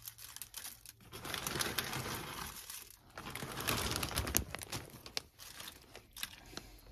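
Plastic bag of dry egg noodles crinkling and rustling in waves as the noodles are shaken out, with many light clicks.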